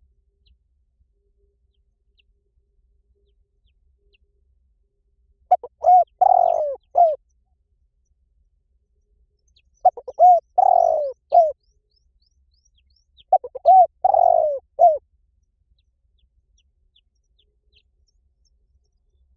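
Spotted dove calling: three cooing phrases about four seconds apart, each a couple of short coos, a longer drawn-out coo and a short final coo. It is a decoy call used to lure wild doves in.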